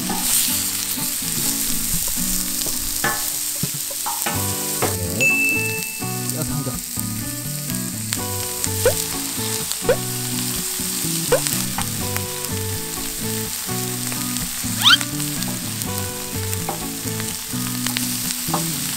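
Pork ribs and bone-in pork belly pieces sizzling steadily on a very hot round steel griddle as they are laid down and turned, with scattered crackles, over background music.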